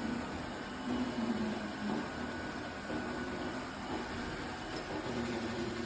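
iRobot Roomba robot vacuum and mop combo running: a steady motor hum with a low drone that swells and dips every second or so.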